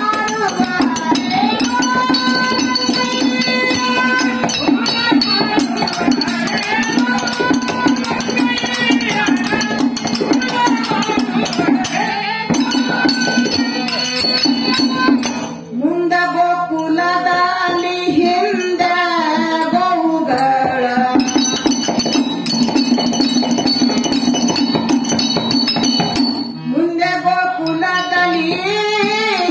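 Devotional bhajan singing with harmonium, drum and steady jingling hand percussion. The singing pauses briefly about halfway, and a lower-pitched vocal line takes over.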